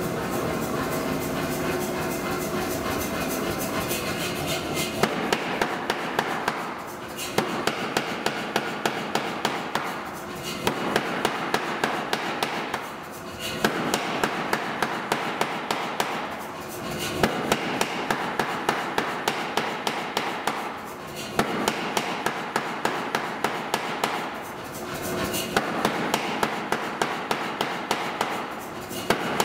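A power hammer strikes a red-hot steel bar held in tongs, in runs of sharp blows about two to three a second with short pauses between runs, tapering the bar. A steady machine drone runs for the first few seconds before the blows begin.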